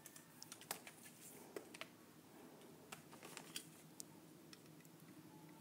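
Near silence with faint, scattered small clicks and taps from handling small objects, here the oscilloscope's probe and leads.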